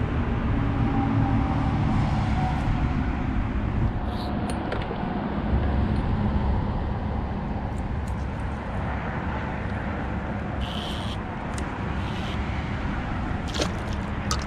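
Steady low rumble of road traffic, with a few light clicks and taps.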